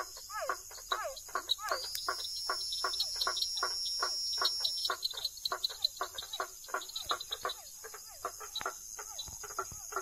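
A chorus of frogs calling: a fast, unbroken run of short calls, several a second, each wavering in pitch, over a steady high trilling of insects. A louder, steady high insect tone joins from about two seconds in and stops about five seconds in.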